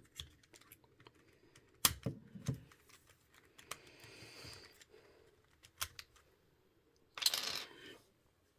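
Scattered light plastic clicks from a Rubik's Speed Cube being handled while a centre cap is prised off to get at its adjustment screw and spring. A brief louder scrape comes near the end.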